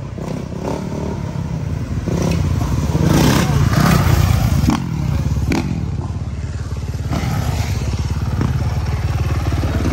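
Two four-stroke 450 dirt bikes racing at full throttle toward and past the listener. The engines build as they approach, are loudest as a red Honda CRF450 passes close between about three and five seconds in, then drop off sharply and keep running.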